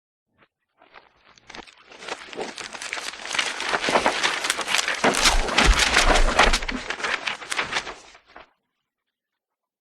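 Rustling and crackling full of small clicks, building up for a few seconds, loudest with a low rumble in the middle, then stopping abruptly.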